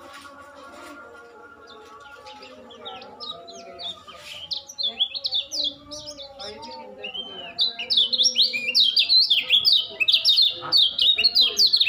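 Young caged white-eye (pleci) singing a rapid twittering 'ngejos' song of quick high chirps. The song starts about three seconds in and turns loud and dense over the second half. It is a young bird only just learning its song.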